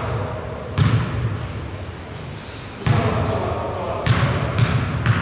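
A basketball bounced on a hardwood gym floor, several single bounces at uneven spacing as the shooter dribbles before a free throw.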